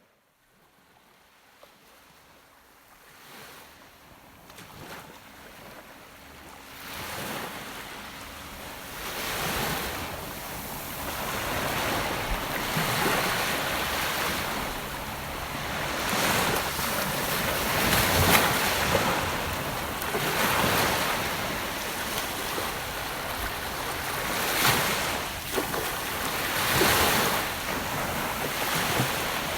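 Gentle ocean waves washing onto a beach, fading in from silence over the first several seconds. The surf then swells and ebbs every few seconds.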